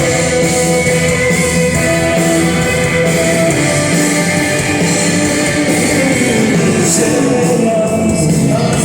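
Rock band playing, with guitars and singing; a long falling slide in pitch comes about two-thirds of the way through.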